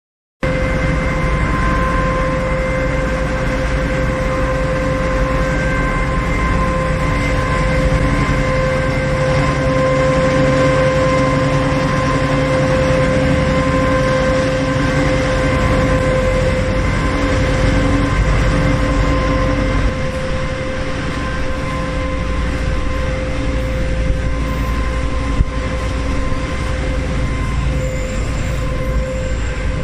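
Machinery of a tofu cat-litter production line running: a steady electric-motor hum with a whine and the rumble of conveyors. It gets a little quieter about two-thirds of the way through, with a single tick near the end.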